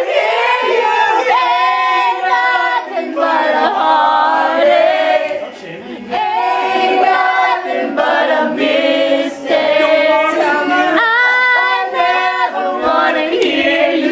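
A group of young men and women singing loudly together in held phrases, with short breaks between lines.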